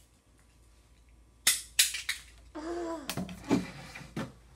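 Sharp clicks and knocks from a small plastic fidget toy: three loud ones about a second and a half in, and a few more later. A child's brief wordless vocal sound comes between them.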